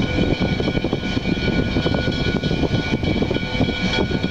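Canadian National 3254 steam locomotive rolling slowly on the yard tracks: a steady rumble with knocks in it, and several steady high-pitched tones ringing above it.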